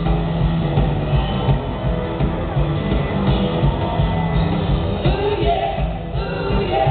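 Live rock-and-roll band playing loudly with a male lead singer and an upright bass, heard muffled from the audience.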